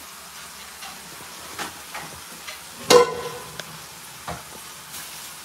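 Steady sizzling hiss of food cooking in a pot on the gas stove, with a few light knocks and rustles from handling, the loudest knock about three seconds in.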